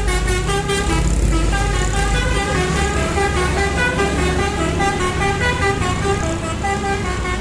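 Bus 'telolet basuri' musical horn playing a quick tune, its notes changing several times a second, over the low rumble of the bus's engine.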